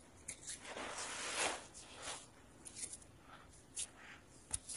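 Rustling of forest-floor vegetation and leaf litter, with scattered small snaps and ticks. A longer rustle rises and fades about a second in.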